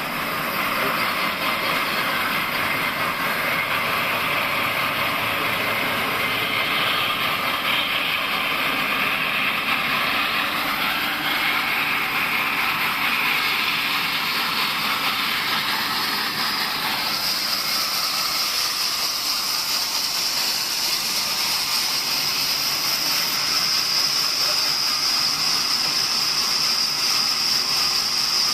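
Sawmill saw running and cutting wood, a steady machine noise. A high whine comes in about halfway through and holds.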